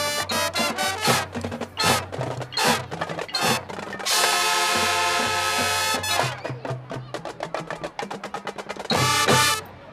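High school marching band playing, brass and drumline together: fast punchy rhythmic hits, a held full-band chord about four seconds in, then quick even drum strokes and a loud final hit near the end that cuts off sharply.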